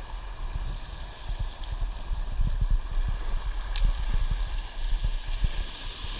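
Shallow river water gurgling and sloshing around someone sitting in it, with irregular low rumbling thumps on the microphone and a single sharp click near the middle.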